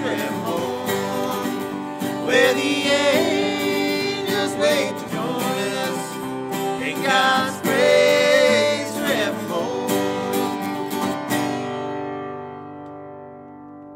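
Acoustic guitar and resonator guitar playing the closing bars of a country-gospel song. A last chord rings out about eleven seconds in and fades away.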